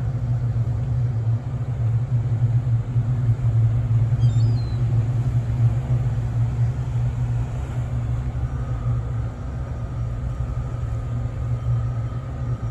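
Wind buffeting the microphone: a steady low rumble that flutters in loudness, with a few faint high chirps about four seconds in.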